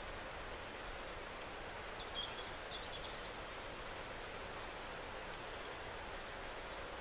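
Faint steady woodland ambience: an even hiss with a low wind rumble, and a few faint high chirps about two seconds in.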